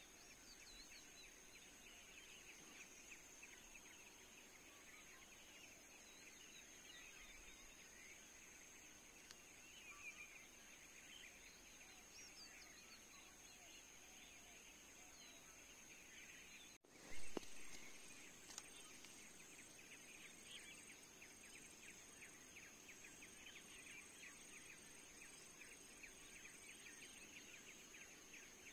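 Faint forest ambience: a steady high-pitched insect drone under dense rapid chirring, with occasional bird calls. A single brief louder knock or crack comes about seventeen seconds in.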